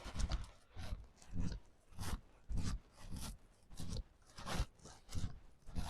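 Footsteps crunching on frozen snow and ice at an even walking pace, about one step every 0.6 seconds.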